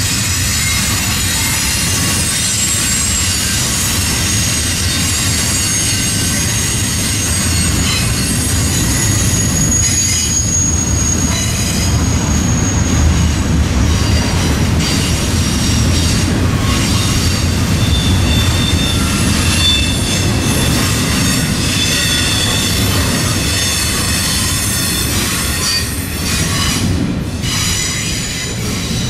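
Freight train rolling past close by: a steady low rumble from the cars, with steel wheels squealing high against the rails in several tones that come and go, and a few clacks.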